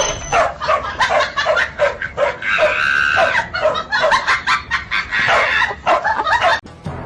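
A pet animal making a rapid string of short, high-pitched calls, about three or four a second, with one longer held call in the middle; the calls stop abruptly near the end.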